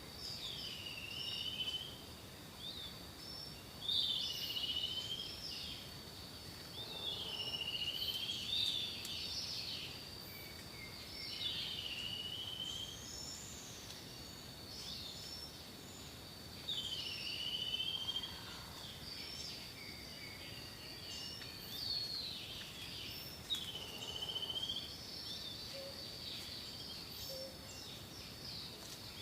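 Repeated whistled bird calls, each dipping and then rising in pitch, coming roughly every three to four seconds, over a steady high-pitched insect drone.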